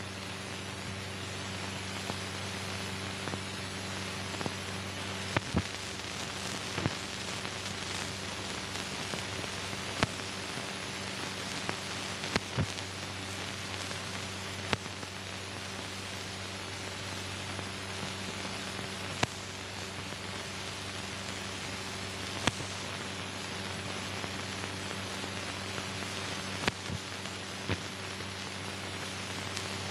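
Steady hiss and low hum of an old film soundtrack, with irregular clicks and pops scattered through it; no sound from the scene itself.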